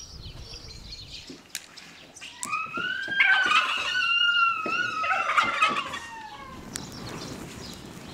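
Rooster crowing once, a long call that rises, holds and falls away over about three seconds, with small birds chirping before it.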